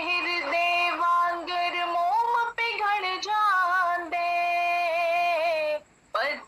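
A woman singing a hymn, holding long notes that waver in pitch, with a brief break near the end.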